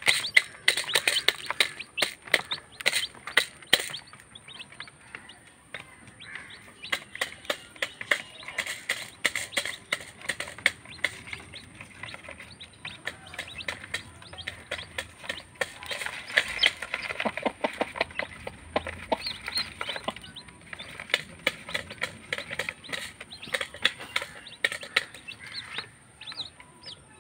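Newborn chicks peeping over frequent sharp pecking taps as a hen and her chicks peck rice grains off a plastic lid and tray.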